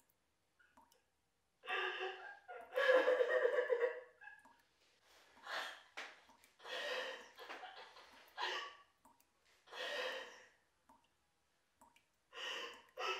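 A person breathing heavily, in a series of audible breaths about every one to two seconds, with short silences between.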